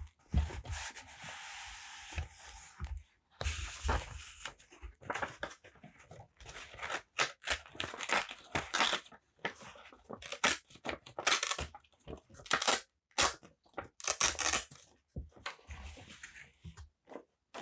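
Paper being torn and handled close to the microphone: a longer, steady tear in the first few seconds, then many short crackling tears and rustles.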